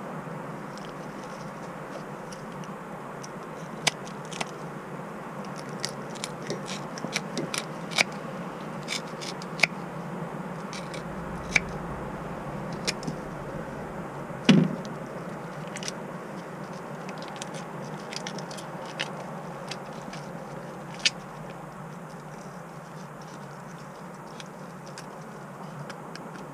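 Kitchen shears snipping and clicking as redear sunfish are cut and cleaned: scattered sharp clicks through most of it, the loudest about halfway through, stopping in the last few seconds, over steady background noise.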